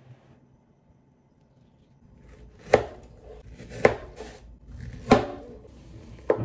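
Kitchen knife cutting through a peeled peach and knocking onto a plastic cutting board, four sharp chops about a second apart after a quiet start.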